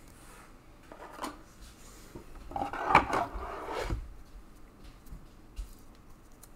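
Light clicks and clatter of hard objects being handled, a few scattered knocks with a busier patch in the middle and the sharpest click about three seconds in.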